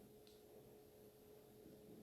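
Near silence: room tone with a faint steady electrical hum and a tiny tick about a quarter second in.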